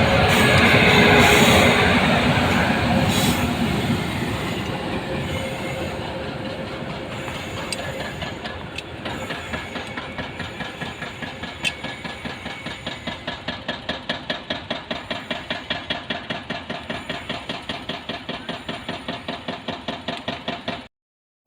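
Goods train wagons rolling past on the track: loud at first, then a quick, steady clickety-clack of wheels over the rail joints that slowly fades. The sound cuts off suddenly near the end.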